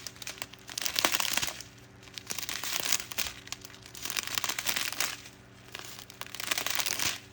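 Small plastic bags of diamond-painting drills crinkling and rustling as they are handled and leafed through, in short bursts about once a second.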